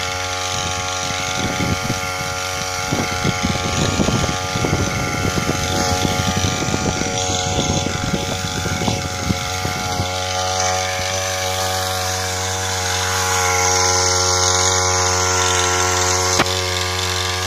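Small engine of a backpack power sprayer running steadily at a constant speed, driving the spray pump. A crackling rustle sounds over it for the first half, and there is a sharp click near the end.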